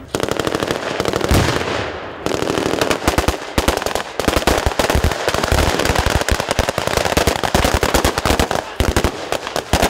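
Automatic rifle fire from Kalashnikov-type assault rifles: rapid, overlapping shots in long bursts, with a brief let-up about two seconds in.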